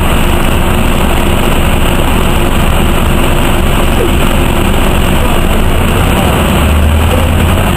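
Inside an MTA NovaBUS RTS transit bus: its diesel engine idles with a steady, loud low rumble while the bus stands. The rumble grows stronger about six and a half seconds in, as the engine picks up to pull away.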